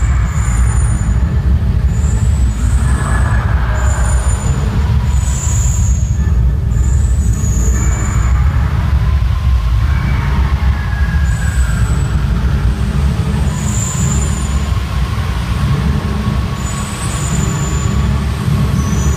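Fall of Atlantis animatronic show's fire-and-fog climax: a loud, deep, continuous rumble, with short high hissing squeals coming and going every second or two as flame and fog jets fire.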